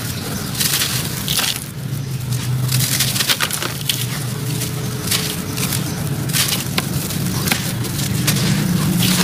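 Hands crushing and crumbling a dry, chalky white block into gritty sand-cement powder in a basin: a dense, continuous run of crunching and crackling. There is a steady low hum underneath.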